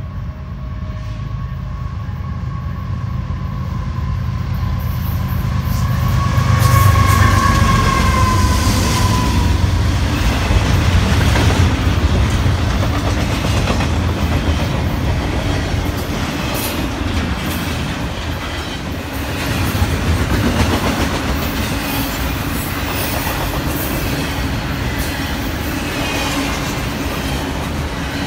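Diesel freight locomotives approach and pass, the rumble building to its loudest about seven seconds in, with a steady horn tone that drops in pitch as they go by at about nine seconds. Then a double-stack intermodal freight train rolls past with continuous wheel rumble and clickety-clack over the rail joints.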